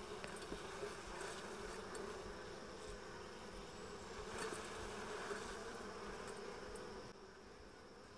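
Honey bees buzzing at an open hive: a steady hum from the mass of bees on a brood frame being brushed off into a bowl. The hum eases a little near the end.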